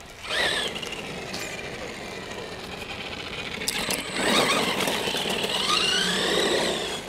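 Electric motor and drivetrain of a Redcat Earthquake 8E RC monster truck whining as it is throttled, the pitch rising and falling with speed: a short burst about a third of a second in, then a longer run of acceleration and slowing in the second half.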